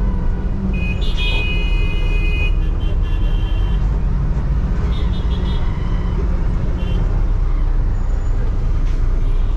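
Steady low rumble of a moving bus's engine and road noise, with vehicle horns honking over it: one long honk about a second in, then shorter honks around three, five and seven seconds in.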